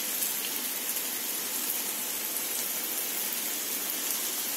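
Vegetable Manchurian balls sizzling in deep-frying oil: a steady hiss of bubbling oil during their second fry.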